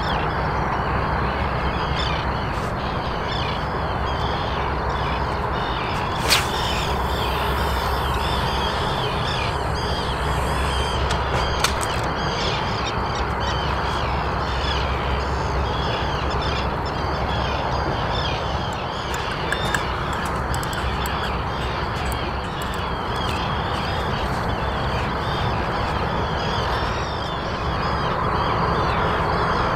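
A dense, unbroken chorus of many overlapping animal calls, crow-like and harsh, with a steady low hum beneath and a sharp click about six seconds in.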